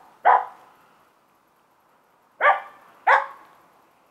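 Finnish Spitz barking three times, one bark then two close together about two seconds later, at a squirrel it has treed: the breed's bark-pointing at game up a tree.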